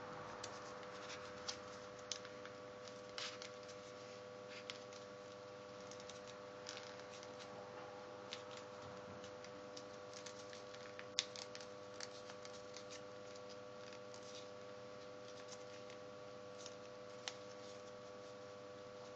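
Sheet of paper being folded and creased by hand: faint, scattered crinkles and small taps, with one sharper crackle about eleven seconds in, over a steady background hum.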